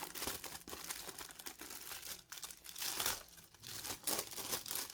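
Packaging being handled and opened by hand: irregular crinkling and crackling.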